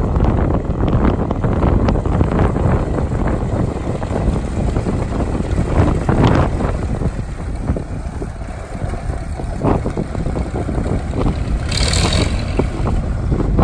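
Farmall Super MTA tractor's four-cylinder engine running steadily as the tractor drives past and away, loudest about six seconds in. Wind buffets the microphone.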